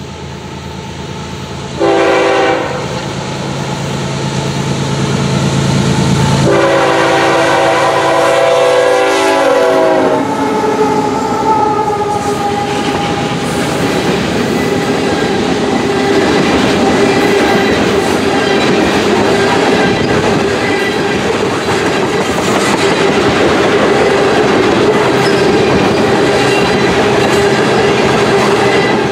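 Freight train passing: the locomotive horn sounds a short blast, then a long blast that falls in pitch as the locomotives go by over a low diesel drone. Then comes the steady rumble and clickety-clack of a long string of tank cars rolling past on the rails.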